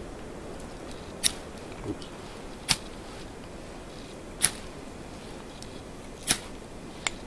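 Striker scraped hard down a fire steel rod, five sharp rasping strokes spaced about a second and a half to two seconds apart, the last one weaker, throwing sparks onto magnesium shavings and birch bark to light the tinder.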